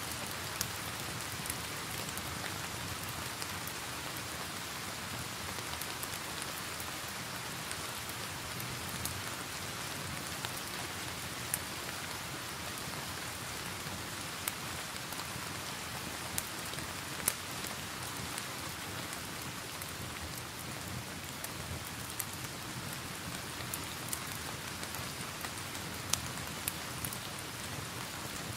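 Steady hiss of falling rain mixed with the sharp, scattered crackles and pops of a log fire burning in a fireplace.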